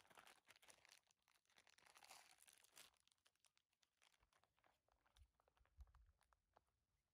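Faint crinkling and tearing of a thin plastic wrapper as a small cake is unwrapped. The rustling is densest for the first three seconds, then thins to scattered light crackles.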